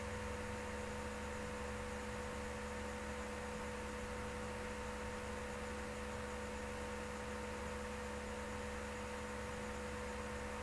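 Steady electrical hum with a few fixed tones over a constant hiss: the background noise of an open recording microphone, with nothing else happening.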